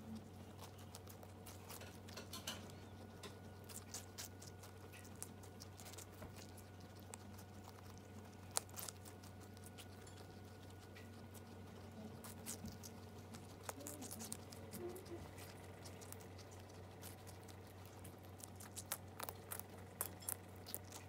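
Two guinea pigs chewing watermelon: many soft, irregular wet crunches and clicks, over a low steady hum.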